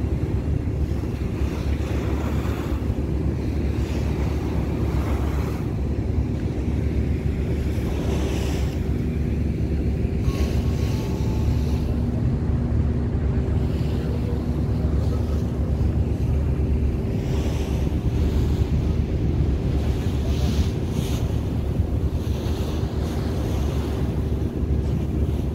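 Passenger ferry under way: its engine gives a steady low rumble with a constant hum, mixed with water rushing past the hull. Wind buffets the microphone in gusts every few seconds.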